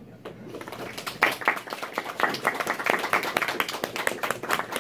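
Audience applauding, many hands clapping, the clapping thickening about a second in.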